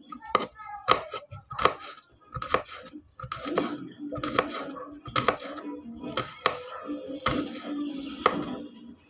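Kitchen knife slicing garlic cloves on a wooden cutting board: a series of sharp knocks as the blade strikes the board, about two a second and unevenly spaced.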